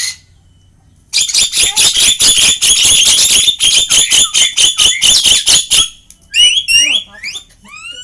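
Tame jalak (starling) giving a loud, rapid string of calls, about four a second, for several seconds. Then come a few short gliding whistled chirps near the end.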